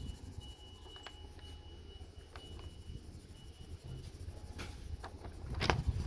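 Faber-Castell colored pencil scratching back and forth on paper as a circle is shaded in, with a thump near the end.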